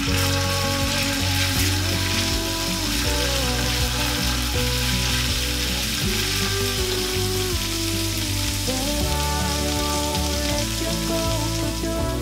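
Minced garlic sizzling steadily in hot oil in a stainless steel frying pan, with background music underneath.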